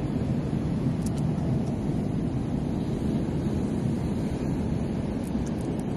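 Steady low rumble of wind buffeting the microphone, with a few faint sharp clicks.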